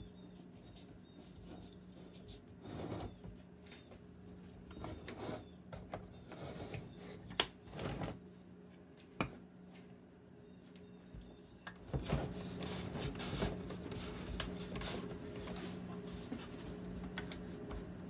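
Wooden parts of a handmade toy bulldozer model rubbing, clicking and knocking together as hands fit and work its mechanism, to check that it moves. Scattered small knocks, with more continuous rubbing from about two-thirds of the way in.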